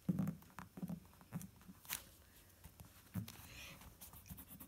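Faint handling sounds of drawing on paper at a table: soft irregular thumps and light taps of a hand and pencil, with one sharper click about two seconds in and a short scratchy rustle on the paper a little after three seconds.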